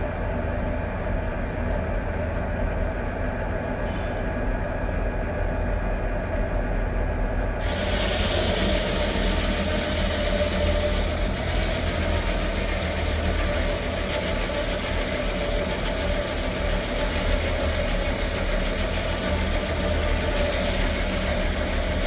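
Foley Belsaw circular sawmill with a 52-inch blade, driven by a Ford 4000 diesel tractor running steadily. About seven and a half seconds in, the blade enters a pine log and the steady hiss of the cut joins the engine's drone and carries on.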